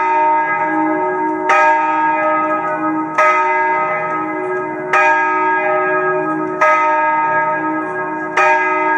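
A single church bell tolling steadily, five strokes spaced about one and three-quarter seconds apart, each stroke ringing on into the next.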